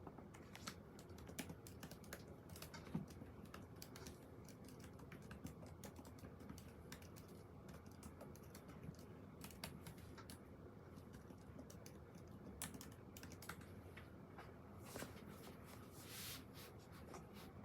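Faint typing on a computer keyboard: many irregular key clicks throughout, with a brief rustle-like burst near the end.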